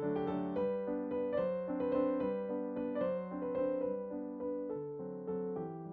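Background piano music: a melody of held notes over chords, playing without a break.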